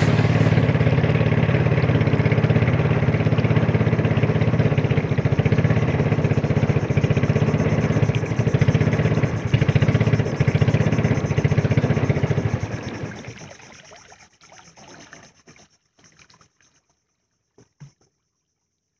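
Small motorboat engine running with a steady, even drone. About two-thirds of the way through it fades out over a second or two, leaving near silence with a few faint ticks.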